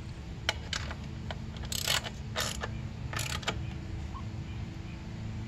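Socket ratchet wrench clicking as a 12 mm nut on a motorcycle's rear drum brake is run down tight: a few single clicks, then three short runs of rapid ratchet clicking about two, two and a half and three seconds in.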